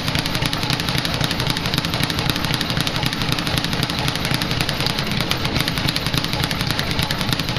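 Speed bag being struck in a fast, unbroken rhythm: a steady rattle of many quick leather-on-board hits each second as the bag rebounds off the platform.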